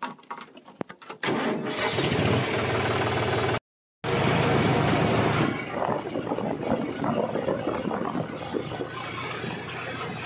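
John Deere tractor's diesel engine starting up about a second in after a few clicks, then running loudly. The sound cuts out for a moment near the middle, then the engine runs on steadily as the tractor drives along.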